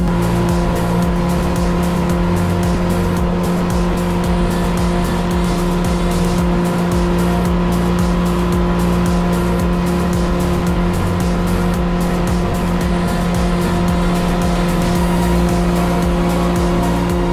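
Hidea 60 four-stroke outboard with a water-jet unit running at a steady pitch, pushing the boat along. Background music plays over it.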